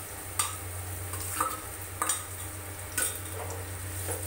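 Chopped onions sizzling in hot mustard oil in a steel frying pan, stirred with a wooden spatula. A handful of sharp utensil clicks against the pan sound over a steady frying hiss.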